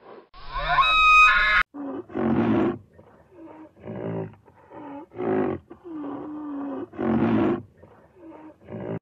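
White rhinoceros giving a run of short calls, about one or two a second, each under a second long with a pitch that dips and bends. A brief, high, ringing sound comes before them in the first second and a half.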